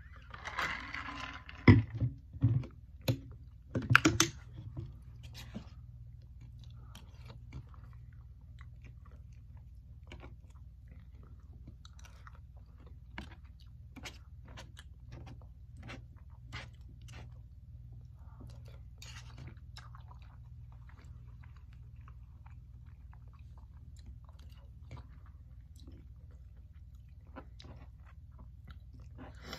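Close-miked eating: chewing and soft clicks of a plastic fork against a plate, with a few loud knocks in the first few seconds, over a steady low hum.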